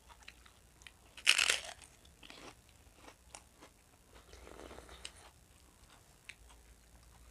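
Crisp fried gol finger snack stick crunching loudly once about a second in, then softer crunching and chewing with small mouth clicks.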